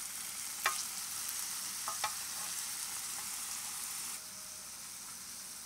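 Cubes of steak sizzling in a hot pan, a steady high hiss, with a few sharp clicks of a metal spoon stirring them about a second and two seconds in. The sizzle quietens a little about four seconds in.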